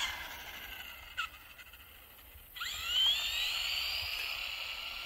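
Brushed 380-size electric motor of a 1/18 ECX Torment RC truck whining at full throttle. The whine fades as the truck pulls away, then about two and a half seconds in it comes back suddenly, rising steeply in pitch as the truck accelerates again, then holding high and slowly fading.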